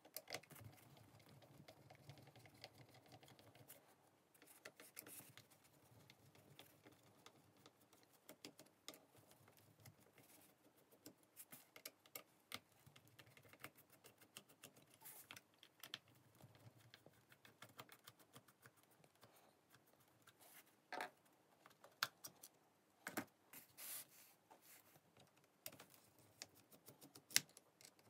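Faint scattered clicks, taps and scrapes of hands taking apart a corded hammer drill's plastic handle housing, with a few sharper clicks in the last third.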